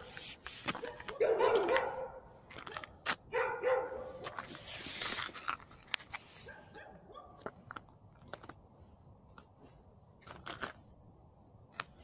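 A dog barks a few times in the first four seconds, each bark drawn out. After a brief rush of noise, scattered crunching footsteps follow on the frosty path.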